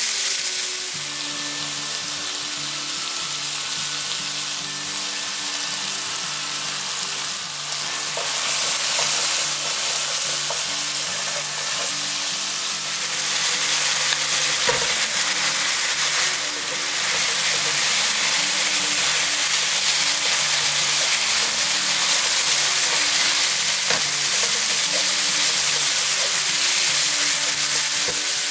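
Thin-sliced beef brisket, onion and garlic sizzling in a hot frying pan while being stirred with a spatula. Boiled spaghetti goes in partway through and the sizzling carries on, louder in the second half as the noodles are stir-fried over high heat.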